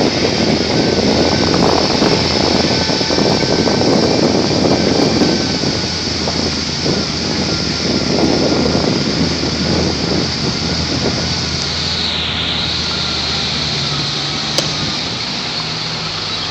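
A vehicle travelling along a road: a steady low engine hum under loud road and wind noise, rougher in the first part, with a single sharp click about fifteen seconds in.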